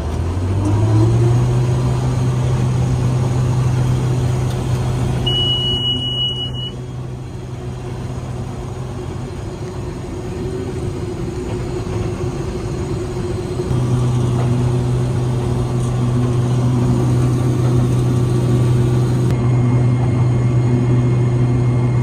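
Combine harvester running while harvesting grain, heard from inside the cab: a steady drone of the engine and threshing machinery that rises in pitch as it revs up in the first second. A brief high tone sounds about five seconds in, and the drone grows stronger again about fourteen seconds in.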